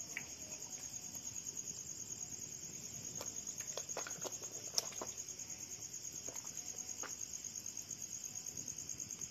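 Insects chirring steadily in a high-pitched, fast, even trill, with a few faint clicks about three to five seconds in.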